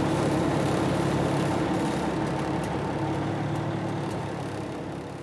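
Fire truck's diesel engine and road noise heard inside the cab while driving, a steady rumble that gradually fades out over the last couple of seconds.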